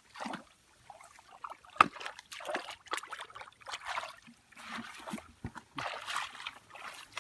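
Shallow muddy water splashing and trickling in irregular bursts as hands work through it, with a few sharp slaps, the loudest about two seconds in.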